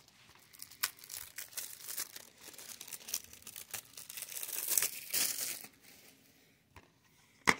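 Plastic shrink wrap being torn and peeled off a DVD case, crinkling irregularly and loudest about five seconds in. A single sharp click near the end as the plastic case is snapped open.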